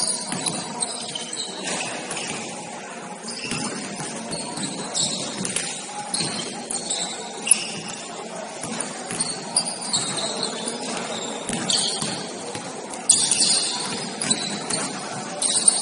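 Basketball sneakers squeaking on a hardwood court in short high chirps throughout, with a couple of sharp knocks, one about halfway through and one near the end.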